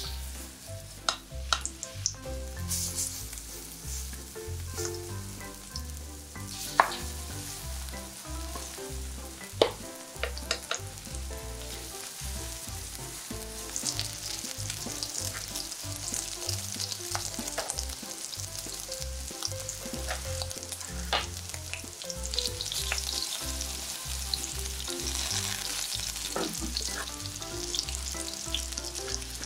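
Shrimp-and-vegetable batter fritters frying in shallow oil in a nonstick pan, sizzling steadily, the sizzle growing fuller about halfway through as the pan fills. A few sharp clicks stand out, the loudest about 7 and 10 seconds in.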